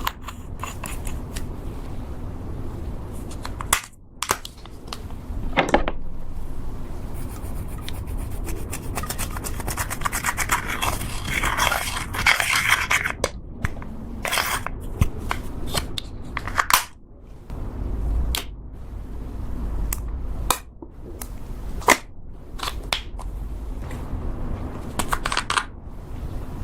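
Slime being worked by hand as makeup is mixed in, with crackling, popping clicks and rubbing and scraping, densest in a long stretch of crackling about halfway through.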